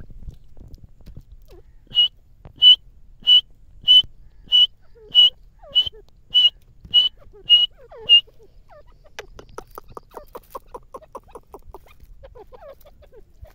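Grey francolin calling: eleven short, loud, high whistled notes at an even pace of about one every 0.6 s, followed about two-thirds of the way in by a quicker, fainter run of lower notes.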